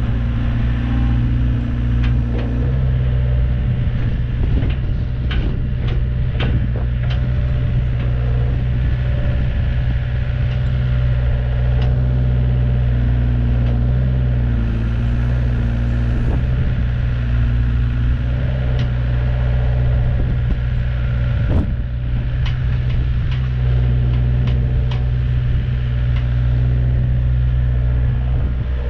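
Volvo ECR88 midi excavator's diesel engine running steadily while the upper structure slews and the boom, arm and bucket are worked on the hydraulics. Scattered short clicks and knocks from the working gear sound over the engine.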